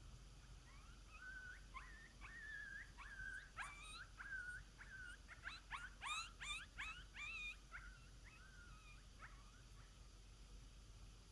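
Faint coyote-style yips and howls: short wavering howls broken by sharp upward yips. They start about a second in, crowd together around the middle and trail off before the end.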